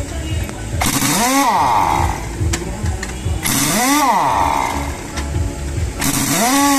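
Pneumatic impact wrench on a truck-trailer wheel, fired in three short bursts about two and a half seconds apart. Each burst is a hiss of air with a whine that rises and then falls as the tool spins up and winds down. A motor runs with a low throb underneath.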